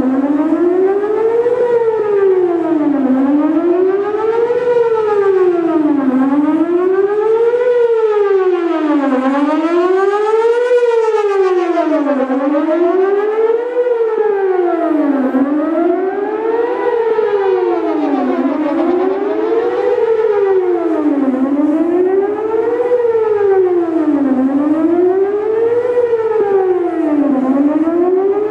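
Whelen WPS 4008 electronic outdoor warning siren sounding a continuous wail, its pitch rising and falling smoothly about once every three seconds. Faint echoes trail the tone.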